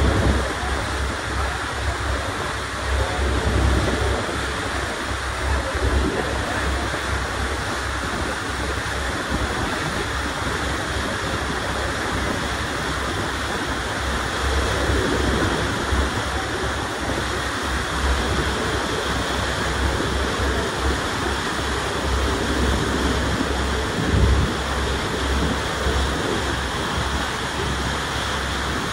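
Water rushing and churning past the hull of a moving ferry, a steady hiss, with wind buffeting the microphone in an uneven low rumble.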